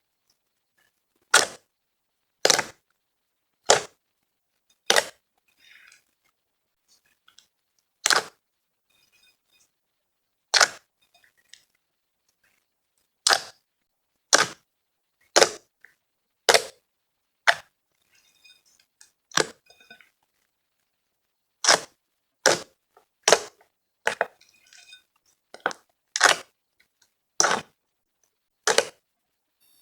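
Fluffy slime being pressed, with trapped air popping in sharp snaps, about twenty irregular pops and faint crackles between them.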